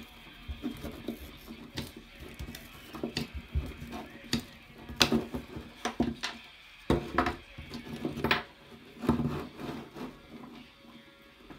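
Plastic and metal parts of a Traxxas Revo rear suspension clicking and knocking as they are taken apart by hand on a wooden bench, with a small hand tool working on the assembly. The sounds come irregularly, with a few louder knocks in the middle.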